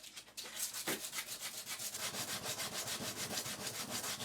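A thin wooden spline being rubbed back and forth on sandpaper by hand, quick even strokes about four or five a second, to take it down to fit its recess.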